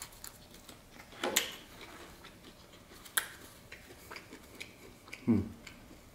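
Eating sounds and homemade baguette being torn apart by hand: scattered crackles and clicks from the crust, a few louder ones about a second and three seconds in, and a short low hum from the eater a little after five seconds.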